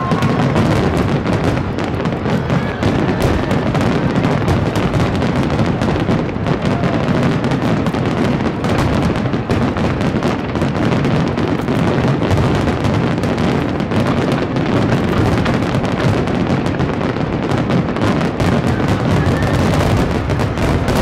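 Grand-finale barrage of aerial fireworks shells bursting many at once, a continuous rolling mass of booms and crackle with no break.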